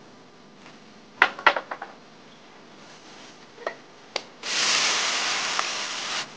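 A few clinks and taps of bowl and spoon against a wok, then a loud sizzle from about four and a half seconds in as pickled mustard greens are tipped into hot chili oil. The sizzle cuts off suddenly near the end.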